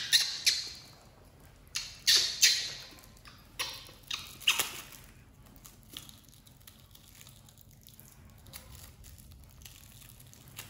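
A run of short rustling, crinkling bursts from a small plastic packet being handled, loudest in the first five seconds, then only faint handling noise.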